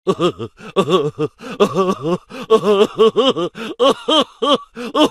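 A rapid string of short vocal sounds, gasping and groaning, each rising and falling in pitch, about four or five a second.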